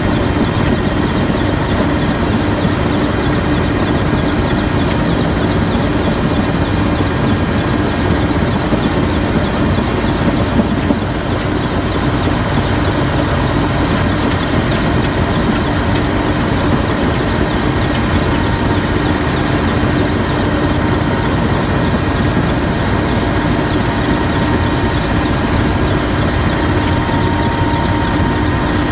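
Steady drone of a helicopter's engine and rotor heard from inside the cabin: one constant hum over a broad, even rushing noise.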